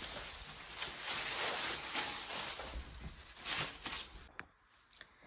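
Rustling and brushing of an artificial plant's leaves as they are wiped with a wet cloth, a soft scratchy noise that stops about four seconds in, leaving a few faint clicks.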